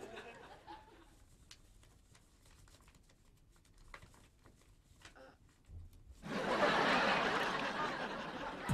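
Quiet scratching of pens and rustling of notepad paper, then about six seconds in a burst of audience laughter that lasts a couple of seconds.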